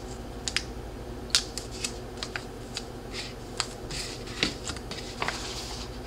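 A metallized anti-static bag holding a 1.8-inch SSD crinkling as it is handled, with irregular sharp clicks and short rustles.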